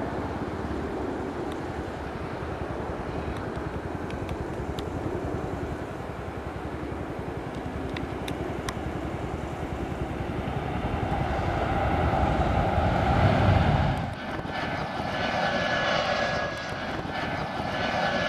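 Airbus A320-family jet airliner landing: steady turbofan engine noise that swells to a loud rumble about 12 to 13 seconds in as it rolls out on the runway. It breaks off abruptly about 14 seconds in to the higher whine of another A320 on approach, with a steady whistling tone over it.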